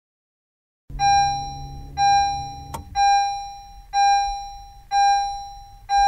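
Car's interior warning chime dinging steadily about once a second, six times, each ding a bright single tone that fades before the next. A low hum beneath the first chimes cuts off with a click just before three seconds in.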